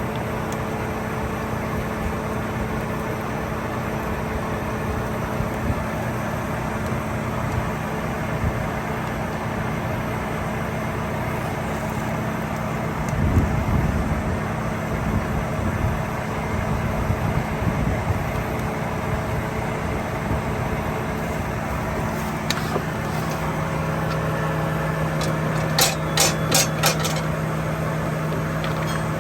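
Diesel engine of harvest machinery running steadily. There is a brief low rumble about halfway, and a quick run of sharp clicks near the end.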